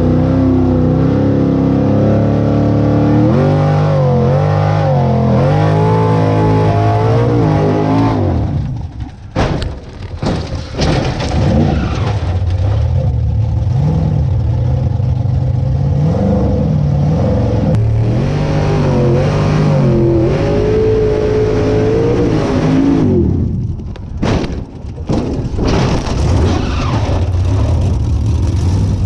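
Formula Offroad unlimited-class buggy's engine, heard from the cockpit, revving hard with its pitch climbing and falling as the throttle is worked. Twice, about nine seconds in and again around twenty-three seconds in, the engine note drops away briefly amid clattering knocks before picking up again.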